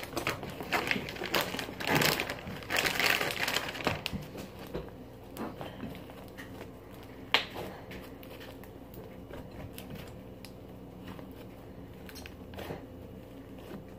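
Hands squishing and kneading slime with Model Magic clay in it, in rough crackly bursts over the first few seconds, then quieter. A single sharp click about seven seconds in.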